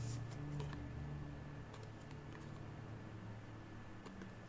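Faint rustling and light clicks of trading cards being slid out of black plastic card sleeves and handled, over a low steady hum.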